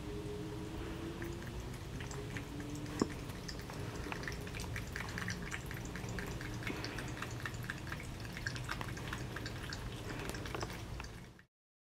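Thin stream of tap water trickling from a faucet into a sink, with the quick little wet clicks of a Persian cat lapping from the stream. One sharper click about three seconds in; the sound cuts off just before the end.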